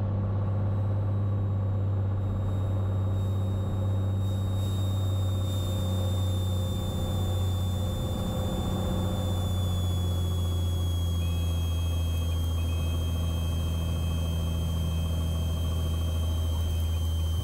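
Cessna 182T's six-cylinder engine and propeller running steadily at low power on landing, a deep drone with a thin high whine above it that slowly falls in pitch.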